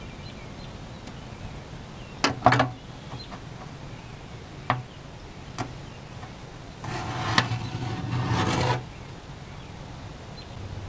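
Several sharp knocks and about two seconds of scraping as the 6V92 Detroit Diesel's oil pan is worked loose by hand; the bolts are out and the old gasket is holding the pan on.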